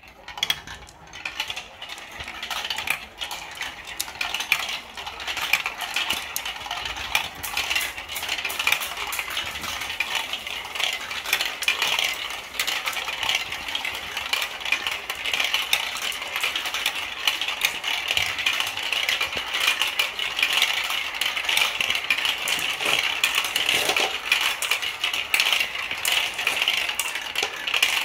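Glass marbles rolling and clattering along plastic marble-run chutes and curves: a dense, continuous rattle of small clicks that builds up over the first few seconds as more marbles join in.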